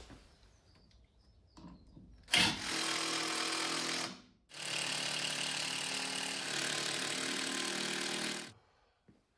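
Power drill running in two bursts, the first about two seconds long and the second about four, with a short pause between.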